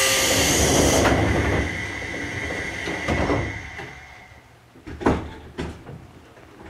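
Air-operated sliding doors of a Seibu 101-series train closing: a loud hiss of compressed air that drops off about a second in and fades away, followed by a few knocks, the loudest about five seconds in.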